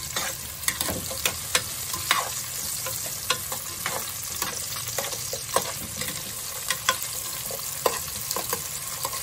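Sliced bell peppers and carrots sizzling as they are lightly fried in hot oil in a pot. A steady hiss with a spoon stirring them, scraping and knocking against the pot at irregular moments.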